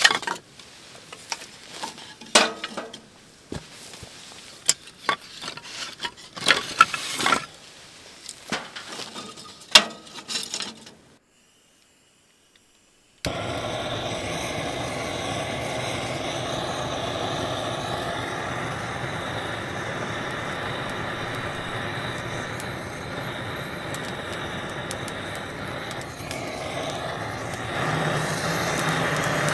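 Split firewood knocking and clacking as pieces are pulled from a stacked pile. Then a handheld Snow Peak GigaPower gas torch runs with a steady hiss against the kindling, a little louder near the end.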